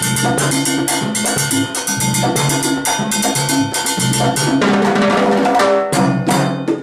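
Hand drums and timbales played together in a fast, busy Latin percussion jam, with conga tones underneath and sharp cymbal and shell strokes on top. About two-thirds of the way through, the playing thickens into a dense fill.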